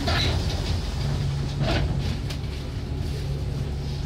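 Alexander Dennis Enviro400 double-deck bus engine running steadily, heard from inside near the front. Two short hissing rushes come over it, one at the start and one just under two seconds in.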